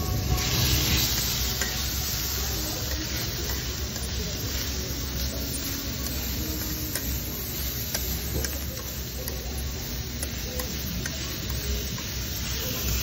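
Pork belly and beef sizzling on a hot flat barbecue griddle, the hiss loudest in the first second or so, while metal tongs stir and turn the meat with light scraping clicks. A steady low rumble runs underneath.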